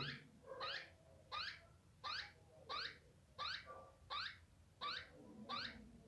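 Plum-headed parakeet chick giving a steady series of short, sharply rising chirps, about one every 0.7 seconds: a hand-fed chick calling for food as it waits to be fed.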